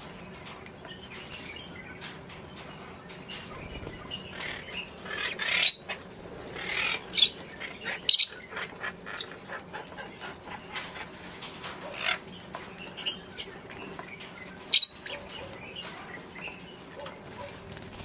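A flock of lovebirds chattering with many short, shrill chirps and squawks, a few of them sharply louder, mixed with wings fluttering as the birds shuffle and flap about.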